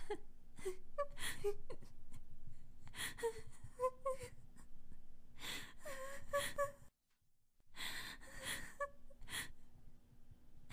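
A young woman crying: short whimpering sobs broken by gasping breaths. It breaks off briefly about seven seconds in, then resumes.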